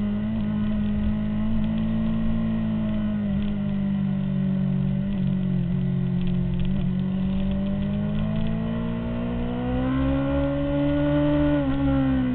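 2003 Honda CBR600RR's inline-four engine running under way, heard from on the bike. The engine note holds fairly level, rises for about two seconds late on, and falls away near the end.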